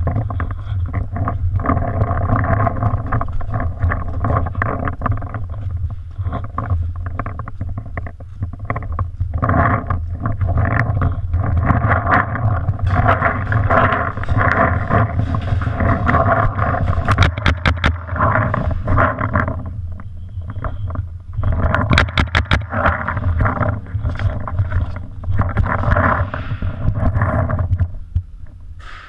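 Rumbling handling and movement noise picked up by a camera mounted on a paintball marker while the player moves. Twice there is a quick run of several sharp cracks: paintball shots.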